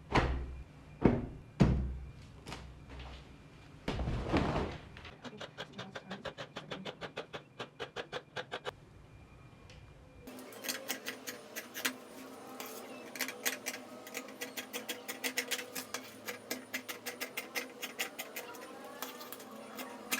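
Sewing work: a few sharp knocks and a brief rustle, then a sewing machine stitching in rapid, even clicks. About halfway through it changes to a steady machine hum under fast, regular ticking.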